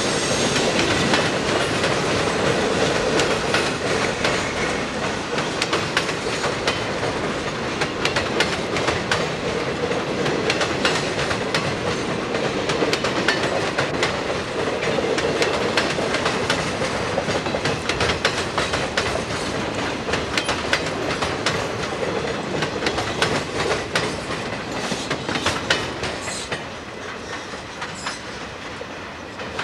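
Freight train cars rolling past, their wheels clicking over the track above a steady rumble. The sound gets quieter in the last few seconds as the rear of the train moves away.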